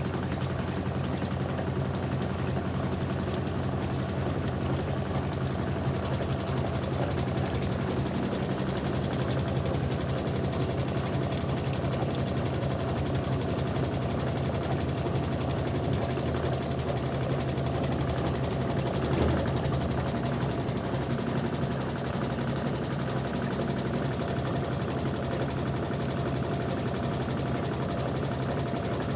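Turbo 10 kg washing machine (LT11F) running steadily, with a continuous low motor hum and mechanical churning, and a brief louder knock about two-thirds of the way through.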